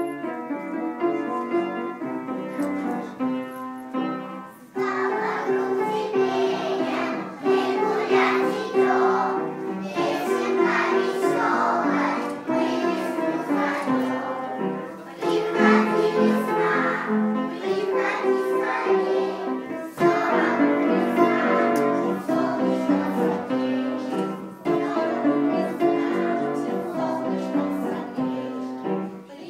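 A children's song playing: children's voices singing a melody over an instrumental accompaniment. It starts suddenly and runs on steadily.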